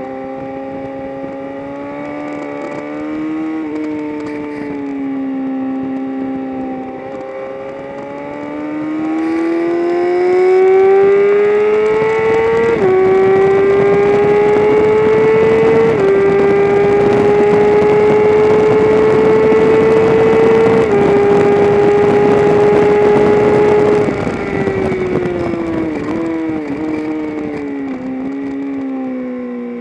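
Race engine under hard acceleration on a circuit. Its note climbs and steps down in pitch at three upshifts, then it comes off the throttle and winds down, with short blips as it is downshifted for a corner.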